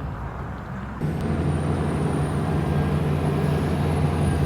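Heavy truck engine running under load, its steady low drone getting much louder about a second in and staying loud, with a thin high whine alongside.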